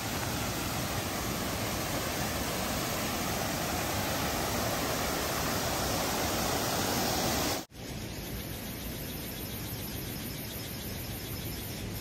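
Small waterfall cascading over boulders into a pool: a steady rush of falling water. About two-thirds of the way in the sound cuts out for a moment and comes back quieter.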